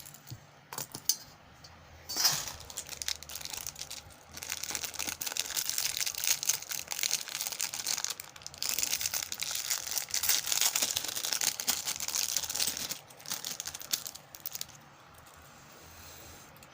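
Plastic packaging crinkling and rustling as it is handled and opened, in dense crackly stretches with a short break midway, thinning to scattered crackles near the end.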